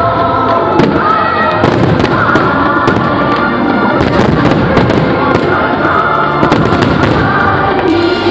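Aerial fireworks shells bursting in rapid succession over loud music from the show's soundtrack.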